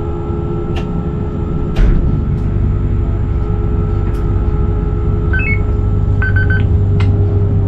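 Forchbahn electric train heard from the driver's cab while running: a steady motor hum and rumble with a few sharp clicks and a knock about two seconds in, after which the low rumble grows. Two short electronic beeps sound about five and six seconds in, the second a quick run of pulses.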